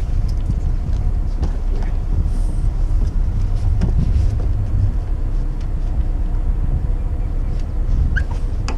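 A steady low rumble from the sailboat's inboard engine idling, with scattered light knocks and clicks from a boathook and lines being handled on deck.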